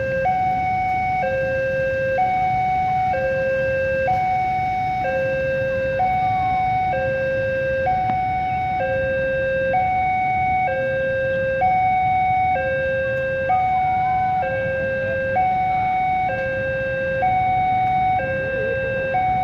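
Railway level-crossing warning alarm sounding a steady hi-lo two-tone call, each tone about a second long, warning road traffic of a train, over a low rumble.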